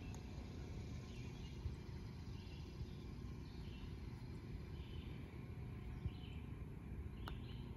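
Outdoor ambience: a low steady rumble of noise with a bird's faint short chirps repeating about once a second and a few light ticks.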